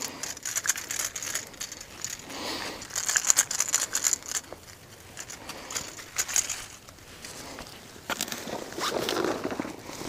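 Dry fallen leaves rustling and crunching underfoot and as gear is handled, with scattered clicks throughout and a busier stretch near the end.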